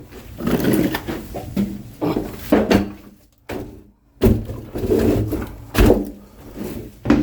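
Bundles of oak firewood being handled and set down: several heavy wooden thuds, with scraping and rustling between them.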